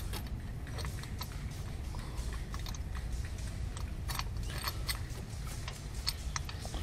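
Scattered small clicks and scrapes as a new spark plug in a socket on an extension is turned by hand into the cylinder head of a Subaru EJ20 boxer engine, metal tool knocking lightly against engine parts, over a low steady rumble.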